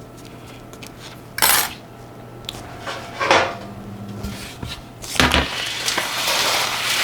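Kitchen utensils and bakeware being handled: two short scrapes or clatters, then a longer, louder scraping rustle near the end.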